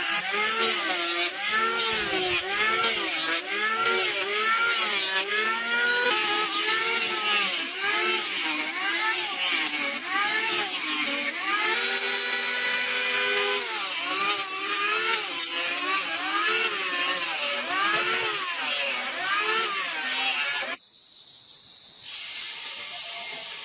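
Power saw cutting wood, its motor pitch rising and falling over and over as the blade takes load, then cutting off suddenly near the end.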